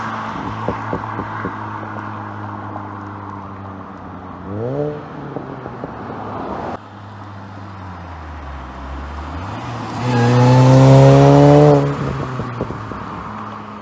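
2006 Mini Cooper S JCW's supercharged four-cylinder engine idling through its exhaust. It is blipped briefly about five seconds in, then revved and held for about two seconds near the end before settling back to idle.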